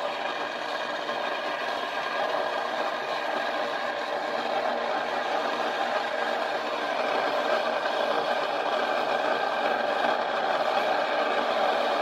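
Walmart Mainstays single-serve K-Cup coffee maker running while it heats water for a brew: a steady mechanical hum with a rattly edge, growing slightly louder toward the end.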